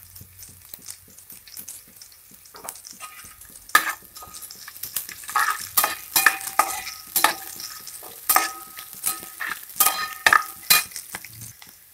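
Ladle stirring onions and green chillies frying in oil in a steel pan, over a light sizzle. From about four seconds in it scrapes and knocks against the pan many times, and some knocks leave the pan ringing briefly.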